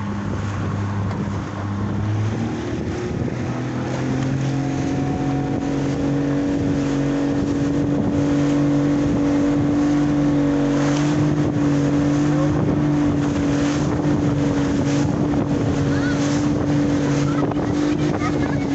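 Speedboat engine running under power, its pitch rising over the first few seconds as the boat speeds up and then holding steady. Water splashes and slaps against the hull repeatedly in the second half.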